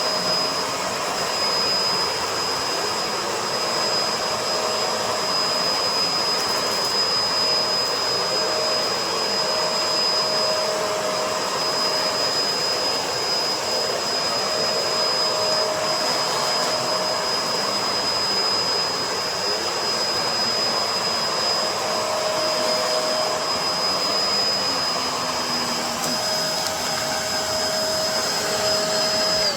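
Bissell MultiClean Allergen Pet upright vacuum (model 2999) running steadily on carpet, a loud rush of air over a constant high motor whine.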